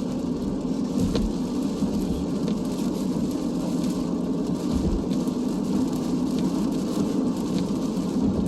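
Steady road and engine noise of a moving car heard from inside the cabin, with rain ticking faintly on the car.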